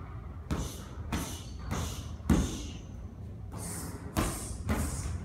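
Gloved punches landing on held striking pads: about seven sharp smacks, roughly half a second apart with a pause near the middle, each with a short ring of room echo. The smack about two seconds in is the loudest.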